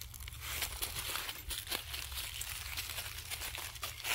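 Dry fallen leaves crackling and rustling in many small irregular crackles as a dog noses and steps through the leaf litter.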